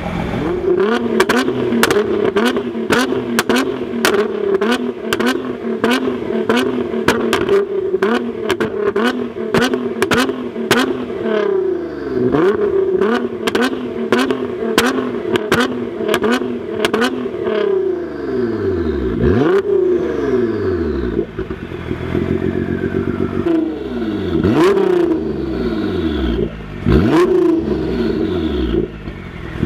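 2009 Nissan GT-R's twin-turbo V6 with a full Armytrix exhaust, revved while parked on a pops-and-bangs map. For about the first half it is held at raised revs with a rapid crackle of exhaust pops. Then come a series of sharp throttle blips, each falling away with a few pops.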